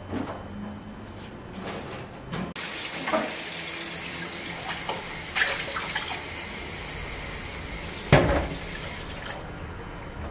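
A kitchen tap runs, filling a glass with a steady hiss of water from about two and a half seconds in until it is turned off near the end. A few light knocks come before the water starts, and a loud sharp knock comes shortly before it stops.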